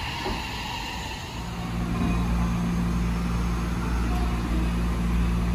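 A Shin-Keisei electric train moves off along the tracks with an even rolling noise. About a second and a half in, this gives way to a steady low hum from a Shin-Keisei 8800 series electric train standing at the platform.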